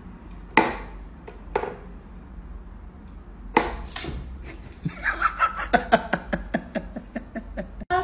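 Sharp wooden clacks from a wooden whack-a-mole cat toy as its pegs are pushed to pop the toy mice up and the cat swats at them, then a quick run of short sounds, about five a second, over the last three seconds.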